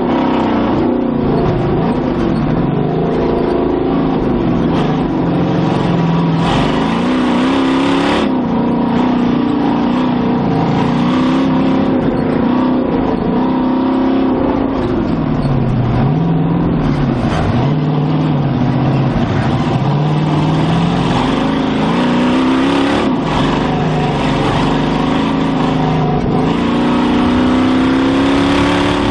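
Race Jeep's 560-horsepower engine running through Dynomax Race Bullet mufflers, heard on board, its pitch rising and falling again and again as the throttle is worked around the dirt course, then climbing steadily near the end as it accelerates.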